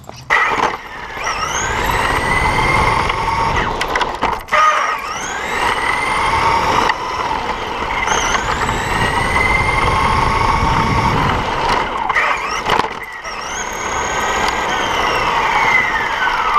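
Team Associated RC buggy driving fast on asphalt, heard from on board. Its motor whine climbs sharply each time it accelerates, four times, over a steady rumble of tyres on the road, and falls away near the end as it slows. A few sharp knocks come from bumps.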